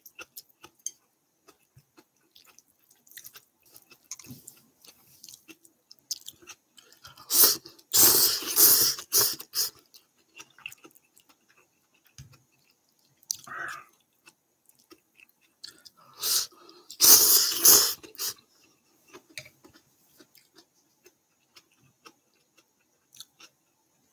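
A person slurping ramen noodles twice, each slurp lasting about two seconds, the first about a third of the way in and the second about two-thirds in, with faint chewing and mouth clicks between them.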